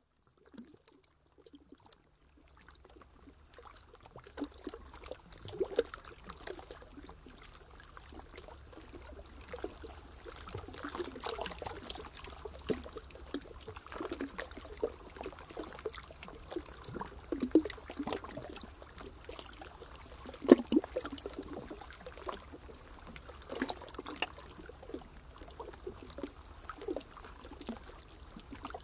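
Water lapping and trickling, with small irregular splashes, starting a few seconds in after near silence.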